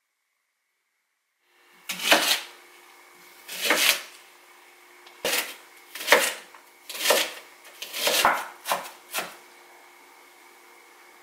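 Chef's knife cutting a red onion on a wooden cutting board: about eight separate strokes at uneven intervals, starting about two seconds in.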